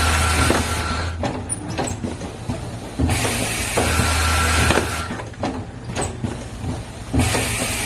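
Automatic spout-pouch packaging machine running through its cycle, which repeats about every four seconds: a loud hissing rush over a low hum and a steady high tone, then a quieter stretch of mechanical clicks and knocks.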